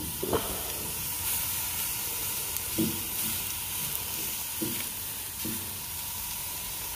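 Rump steak sizzling steadily on a hot gas barbecue grill, its freshly flipped side searing on the grates, with a few soft knocks.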